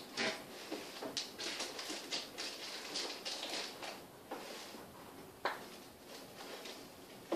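Rustling and light clicking of an eye makeup container being handled and opened, with a sharper click about five and a half seconds in and another at the end.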